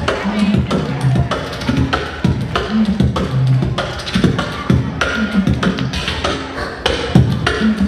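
Beatboxing: a steady, fast rhythm of mouth-made kick, snare and hi-hat sounds, with short low hummed bass notes woven between them.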